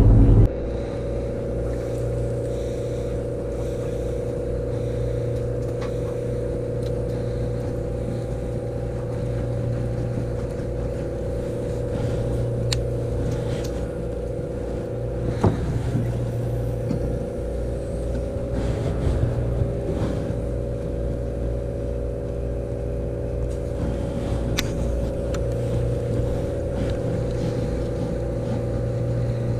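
Fishing boat's engine running steadily, a constant drone with a steady hum on top. A few light knocks and clicks come through around the middle.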